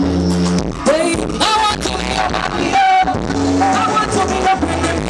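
A singer performing live into a microphone over band music, with sung melody lines above steady bass notes.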